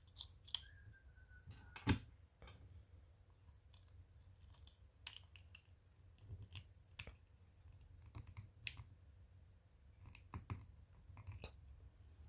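Small sharp clicks and taps of a plastic toy remote control being handled as its battery is put back in, coming irregularly, with the loudest clicks about two, five and nine seconds in.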